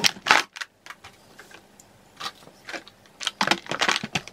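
Plastic cosmetic bottles and tubes clattering and tapping against each other and a plastic basket as they are packed into a drawer. The knocks come in two bunches, one at the start and a longer one a little over three seconds in.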